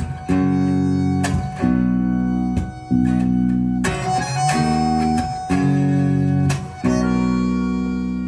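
Live band playing an instrumental passage: strummed guitar chords changing about once a second over bass, with sustained accordion tones.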